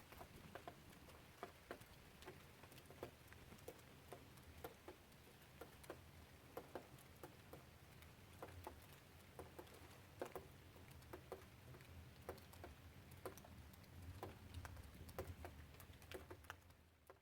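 Faint rain patter: scattered drops ticking irregularly, a few a second, fading out near the end.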